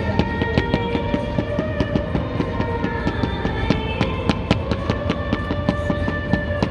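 Fireworks popping and crackling in a rapid, continuous barrage, mixed with music playing held notes over a beat.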